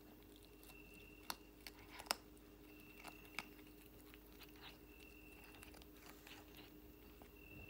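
A cat chewing on a piece of boiled snake: faint, quiet chewing with a few sharp crunches, the loudest about two seconds in.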